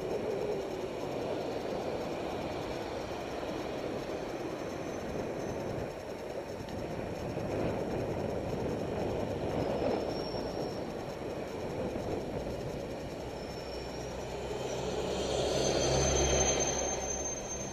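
City traffic heard from a moving helmet camera: a steady rush of road and wind noise as trams stand and pass close alongside on the tracks. Near the end it swells with a passing vehicle's low engine hum and a thin high whine.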